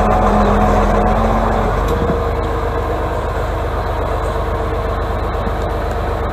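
Diesel engine of an Atlas 1602 wheeled excavator running as the machine drives slowly; about two seconds in the engine note changes and settles a little quieter.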